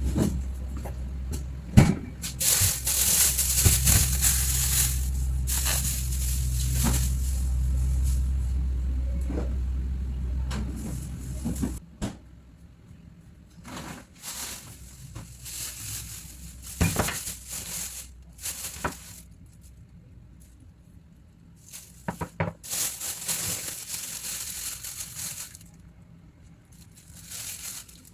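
Plastic grocery bags rustling and crinkling, with knocks of produce and containers being handled as groceries are put away. A low steady hum sits under the first part and cuts off suddenly about twelve seconds in.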